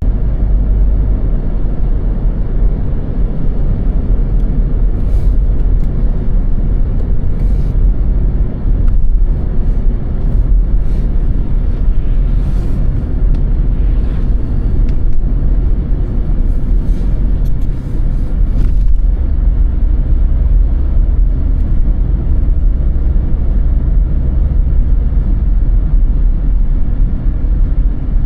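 Car driving on a snow-covered road: a steady low rumble of tyres and engine, with a few faint clicks scattered through.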